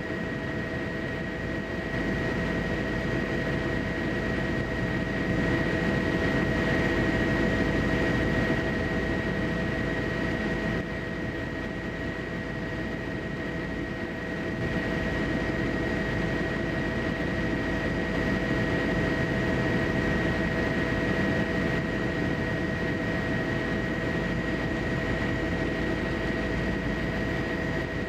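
Steady aircraft engine noise with a constant high whine over a broad rumble; the level steps up and down a few times.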